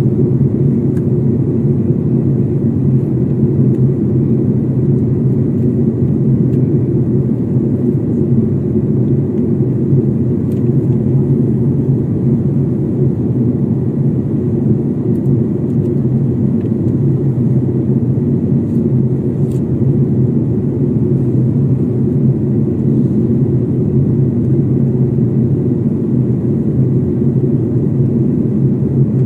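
Steady cabin noise of a jet airliner in flight, heard from inside the cabin: an even, low rumble of engines and airflow that holds the same level throughout.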